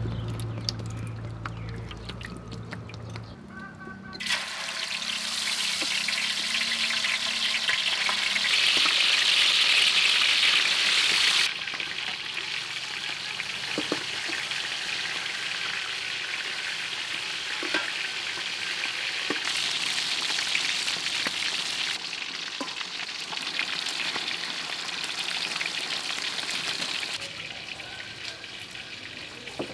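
Food frying in hot oil in a large steel wok: a sizzle starts suddenly about four seconds in as the food goes into the oil and is loudest for a few seconds. It then carries on a little lower with the occasional clink of a utensil stirring, and eases near the end.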